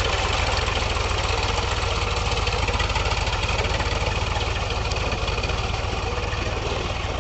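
Powertrac Euro 45 tractor's diesel engine running steadily with an even pulse, hauling a rotary puddler and leveler through wet paddy mud.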